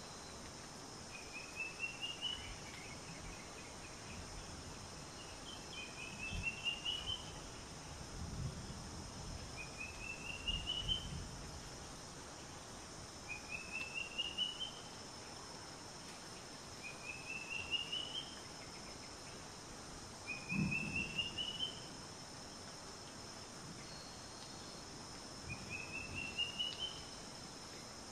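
Wild nature ambience: a small animal's chirping call repeating about every three and a half seconds, each a quick run of chirps rising in pitch over about a second, over a steady hiss. Soft low thumps come now and then, the loudest about twenty seconds in.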